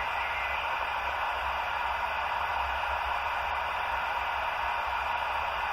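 Steady hiss of radio static from a receiver between transmissions, with a low hum underneath.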